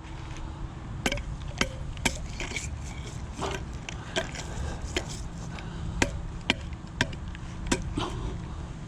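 Sharp, irregular metallic knocks and clicks, about one or two a second, as a rusty homemade grapple hook just pulled from a canal is handled and knocked about, over a steady low rumble.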